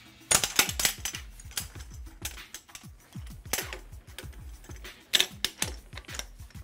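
Metallic clicking and clanking from a torque wrench and its clamp on the axial isolator's steel threaded sections, in irregular bursts, as the joints are broken loose and made up again to let the threads relax before final torque.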